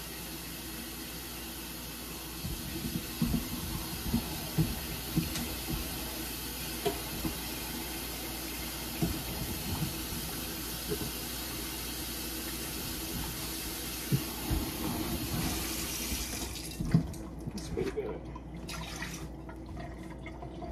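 Kitchen sink tap running water into a pot of potatoes, filling it, with a few knocks along the way. The water shuts off about three-quarters of the way through, followed by a few clunks.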